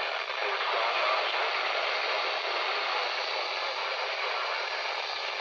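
Steady static hiss from a NOAA Weather Radio receiver tuned to a weak, distant station.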